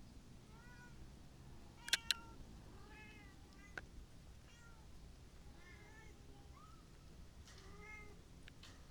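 Kittens mewing over and over, short high mews about every second. Two sharp clicks come about two seconds in and another near four seconds.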